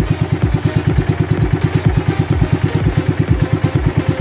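Small fishing boat's gasoline engine running steadily under way, an even putter of about ten beats a second.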